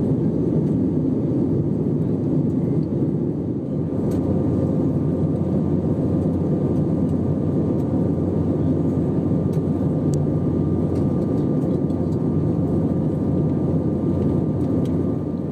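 Steady in-flight cabin drone of an Airbus A321neo: engine and airflow noise heard from inside the cabin, with a faint steady high whine in the background.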